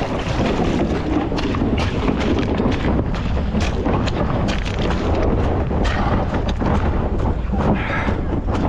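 Wind buffeting the microphone, a steady low rumble, with many short knocks and clicks scattered over it.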